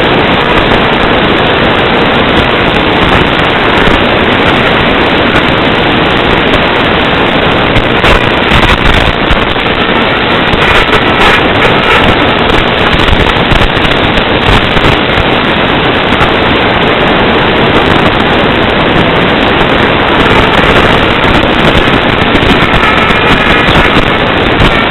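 Loud steady hiss of static on an FPV video receiver's audio channel, with a few faint short whistling tones near the middle and the end.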